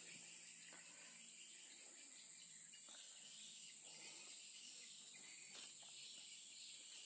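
Faint, steady high-pitched chirring of insects, with a light tick about five and a half seconds in.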